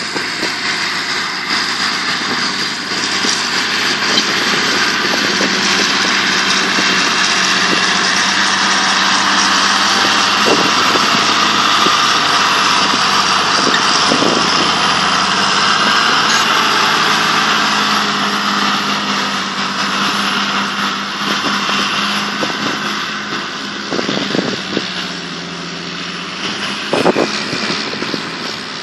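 John Deere tractor's diesel engine working steadily under load as it pulls a disc harrow through stubble. It grows louder as the tractor passes close about halfway through and eases off near the end, with a few short knocks along the way.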